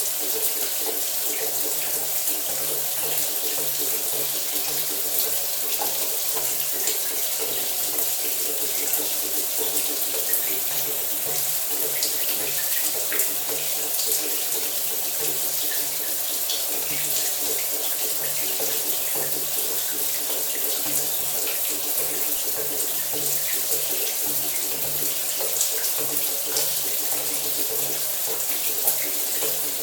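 Shower running steadily: a continuous hiss of water spraying and splattering, with many small droplet patters and a faint low hum under it.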